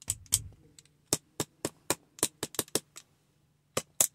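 Plastic airbag impact sensor harness connector being shaken by hand, giving a quick run of sharp plastic clicks and taps, about three or four a second, with a short pause before a few more near the end. It is being shaken to free the inner piece of the old sensor's connector, which has come off and is stuck inside it.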